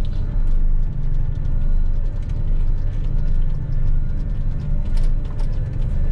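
Claas Lexion 670 combine harvester running, heard from the driver's cab: a steady low engine hum with a constant clatter of small rattles and clicks from the machine.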